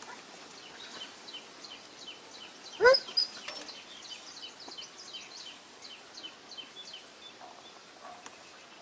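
A newborn puppy gives one loud, rising-and-falling yelp about three seconds in, with faint puppy squeaks around it. Small birds chirp steadily in the background.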